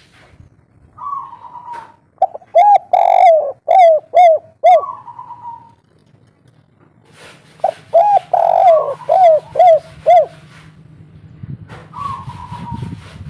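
Spotted dove calling: two bouts of quick repeated coos, each about two and a half seconds long, with a higher drawn-out note before, between and after them.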